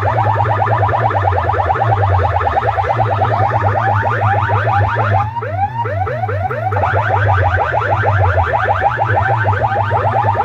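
Loud electronic siren-like effect played through DJ sound-box speakers: rapid repeated rising chirps over a heavy, steady bass. About halfway through the chirps turn briefly into slower, falling sweeps, then pick up again.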